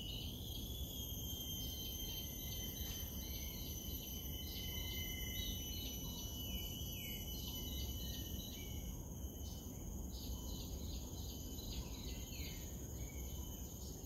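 Rainforest insects buzzing in steady high tones, with birds chirping short, falling notes over and over above them and a low rumble underneath.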